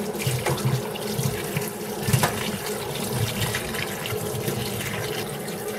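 Kitchen tap running into a metal colander of small tugun fish, water splashing as hands rinse and turn the fish. A brief knock about two seconds in.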